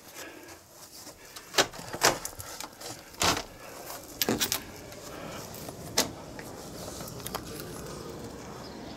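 A handful of clicks and knocks from a uPVC balcony door's handle and frame as it is opened, the loudest about two and three seconds in. From about halfway through, a steady outdoor city background noise.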